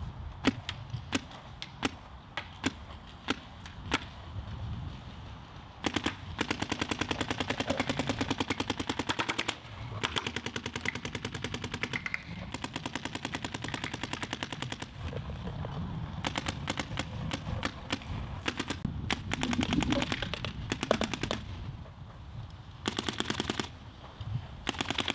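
Planet Eclipse CS3 electronic paintball marker firing: a few single shots about half a second apart, then long fast strings of rapid fire with short pauses between them.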